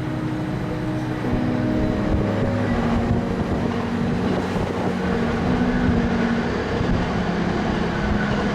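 Steady rumbling wind noise on the microphone under background music with long held notes that change pitch every second or so.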